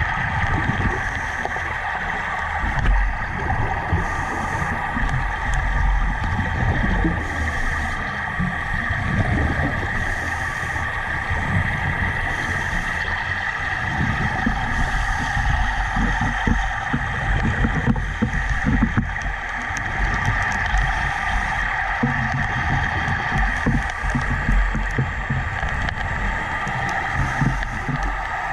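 Underwater airlift dredge running: compressed air rushing and gurgling up the suction pipe as it draws sediment off the seabed, a steady rush over an uneven, surging low rumble.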